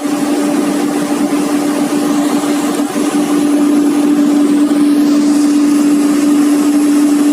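Komatsu PC200-8 excavator's diesel engine running steadily, with a constant droning tone over the engine noise, a little louder from about halfway through.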